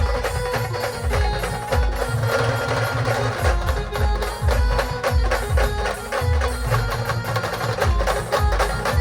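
Live Marathi band music, instrumental: a sustained melody over heavy, rapid bass-drum beats and dense fast percussion clicks.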